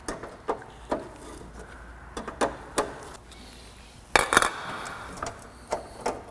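Scattered metallic clinks and knocks of tools and parts being handled, about a dozen short strikes with the loudest a little after four seconds in.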